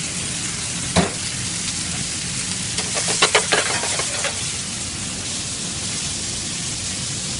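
Strips of beef frying in olive oil and butter in a skillet, a steady sizzle, with a sharp metal knock about a second in and a quick cluster of knocks around three seconds as the meat is stirred and tossed in the pan.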